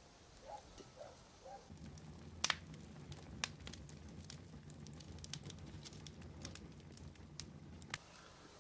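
A lemon being squeezed by hand into the sauce: faint squishing and juice pattering, with a few light clicks, two of them sharper. A faint low hum starts about two seconds in.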